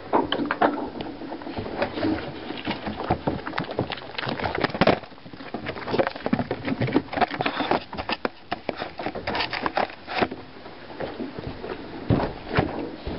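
Irregular close knocks, clicks and scuffs: a pot-bellied pig rooting and chewing at food on a rug right by the microphone, and the camera being picked up and handled.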